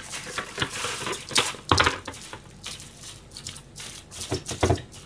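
Plastic cling film being pulled from its box and torn off: crinkling, crackling plastic with a few sharp knocks.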